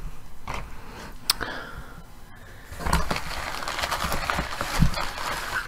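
Newspaper rustling and crinkling as it is handled and pulled from a cardboard box, starting about halfway through, after a few light knocks, with a low thump near the end.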